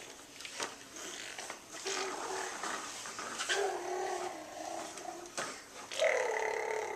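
A baby making car noises: several drawn-out, growly vocal hums, like a "vroom", with the loudest near the end. A few faint clicks in between.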